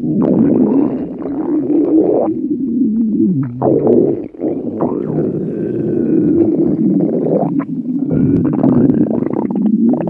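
Loud, continuous stomach rumbling and gurgling that starts suddenly, with a falling groan about three seconds in and a brief dip just after four seconds.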